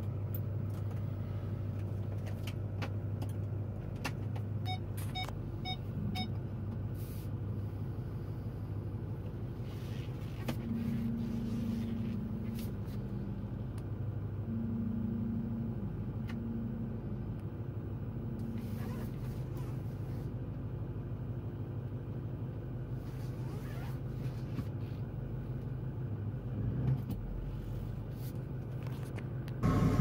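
Pickup truck engine running steadily, heard from inside the cab, with a short run of electronic beeps about five seconds in.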